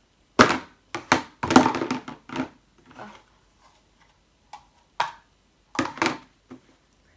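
Clear plastic food tub being handled and knocked against a tabletop: a series of sharp plastic clacks and knocks, bunched in the first two and a half seconds, then a few more near the end as it is set down.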